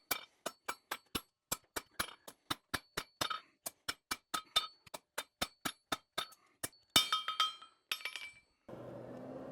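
A hand hammer strikes steel on an anvil in a fast, even run of about four blows a second, each with a bright metallic ring. About seven seconds in come a few louder strikes that ring longer. The blows stop near the end, leaving a steady low rushing noise.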